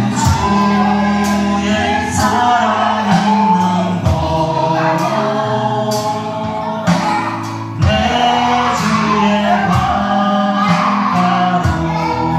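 Gospel worship music from a church service: voices singing together over a band with a steady beat, relayed into the room through the nursery's TV.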